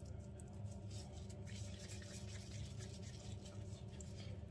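Gloved hands kneading and rolling minced veal into balls: soft, faint rubbing and squishing of thin plastic gloves against the meat, over a steady low hum.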